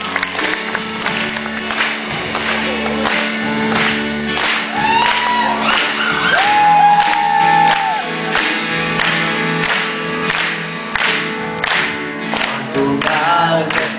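Live acoustic rock band playing a song with a steady beat of about two strokes a second, a few long sung notes over it, and crowd voices mixed in.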